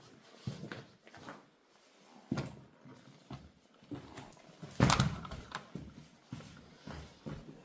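Footsteps scuffing over slippery, rocky ground: uneven steps with a louder scrape or knock about five seconds in, and heavy breathing.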